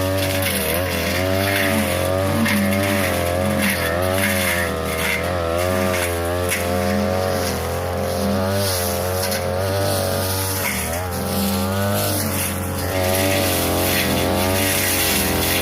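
42cc two-stroke brush cutter running at high revs, its engine pitch rising and falling again and again as the blade cuts through tall grass and brush.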